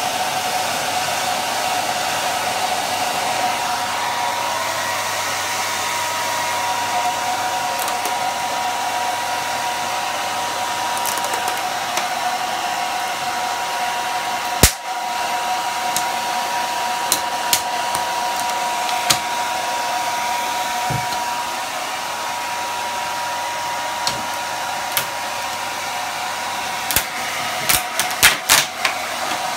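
Handheld hair dryer running steadily with a steady whine, blowing hot air onto the vinyl covering of a kitchen cupboard door to soften the glue beneath it. There is one sharp click about halfway through and a cluster of sharp clicks near the end.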